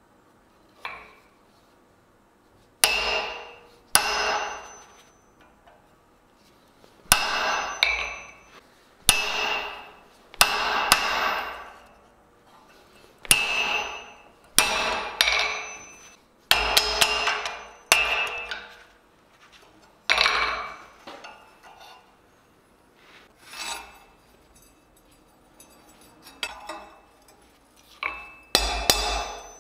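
Hand hammer striking a punch held on a red-hot steel tong blank on an anvil, punching a hole through the hot metal: about fifteen sharp blows at an uneven pace, some in quick pairs, each with a short metallic ring.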